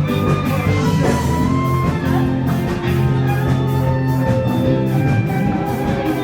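Live band playing an instrumental break: guitar over a steady drum beat, without vocals.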